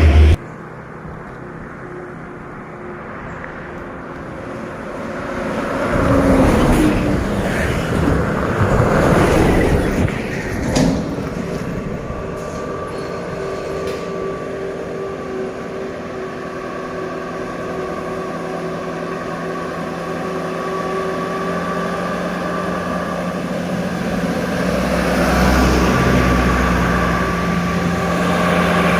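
Heavy road traffic: a vehicle passes with a loud rush of engine and tyre noise about six to ten seconds in. After that a heavy diesel truck engine runs steadily under load and gets louder toward the end.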